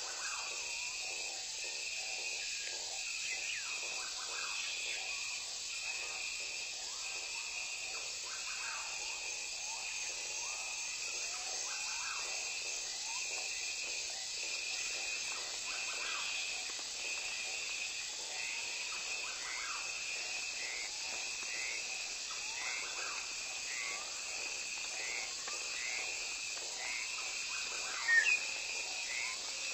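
Forest ambience of insects chirping: a high, steady hiss with a repeating chirp pulsing about once a second. Faint crackles run beneath it, and a brief louder sound comes near the end.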